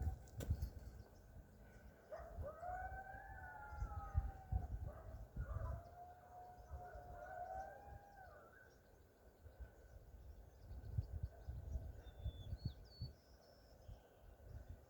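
A group of coyotes howling: several overlapping, wavering howls that rise and fall, starting about two seconds in and dying away after about six seconds.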